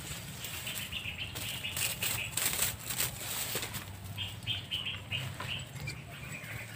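Dry brush and dead leaves rustling and crackling as a snared water monitor lizard thrashes in the trap, loudest about two to three seconds in. Two runs of quick high chirps sound in the background, one about a second in and one after about four seconds.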